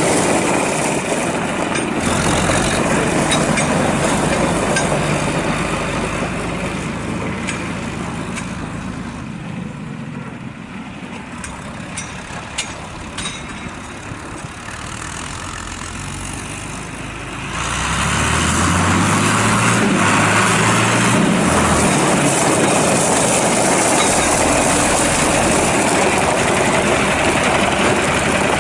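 John Deere 4020's six-cylinder diesel engine running. It grows quieter for a stretch in the middle with a few light clicks, then comes back up louder and stays there from about two-thirds of the way in.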